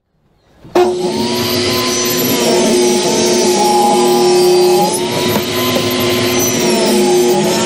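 Table saw running and ripping wood, starting abruptly about a second in: a loud, steady motor whine with a higher tone that sags and recovers in pitch as the wood is fed through the blade.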